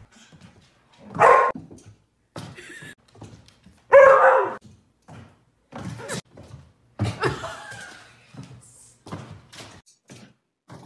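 A dog barking in loud bursts, the loudest about a second in and again about four seconds in, with smaller barks later and short knocks between them.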